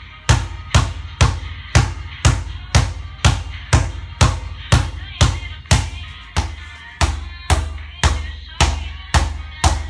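Background music with a steady drum beat of about two hits a second over a deep bass line.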